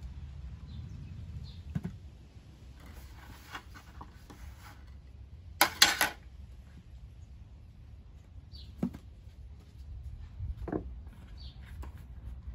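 Handling of glass and plastic containers: scattered light knocks and clinks, with one short, loud clatter about six seconds in as a glass jug is handled, and softer knocks later. A few faint bird chirps in the background.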